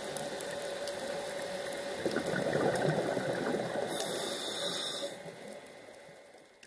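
Underwater sound from a scuba dive: a steady hum, then about two seconds in a rush of exhaled regulator bubbles lasting about three seconds, after which the sound fades away.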